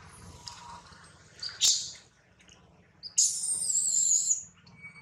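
Baby macaque giving high-pitched squealing cries: a short sharp one about one and a half seconds in, then a longer wavering one from about three seconds in.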